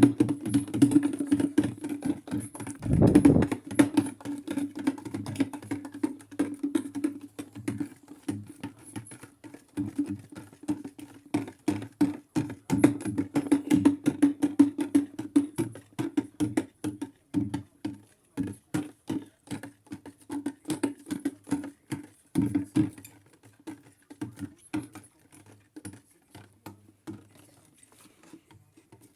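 Maytag washing machine running its delicate cycle: a steady motor hum under rapid, irregular clicking and patter, with one heavier thump about three seconds in. The clicking thins out in the last few seconds.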